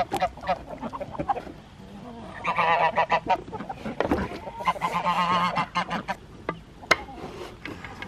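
A domestic goose honking in two bouts of about a second each, the first a couple of seconds in and the second near the middle. Scattered clicks and knocks come from the lid of a plastic poultry waterer being worked by hand.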